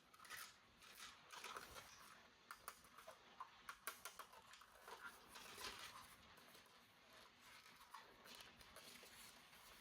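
Faint handling noises: scattered light clicks and soft rustles of a toy and its packaging being handled, thinning out after about six seconds.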